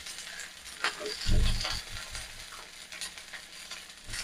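Water simmering and sizzling in a hot nonstick frying pan, with light clicks and splashes as slices of raw plantain are dropped in by hand. A dull low thump, the loudest sound, comes about a second and a half in.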